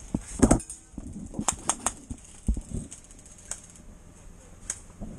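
Airsoft fire: scattered sharp snaps of shots and BB hits, with a quick run of three about a second and a half in and single ones later. There is a louder, fuller knock near the start.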